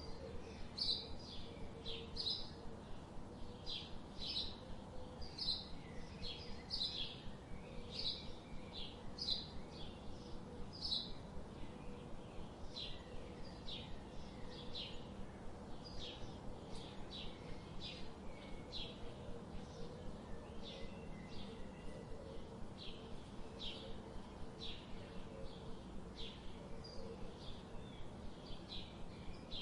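Birds chirping: short, high chirps repeated steadily, about one or two a second, over faint steady background noise.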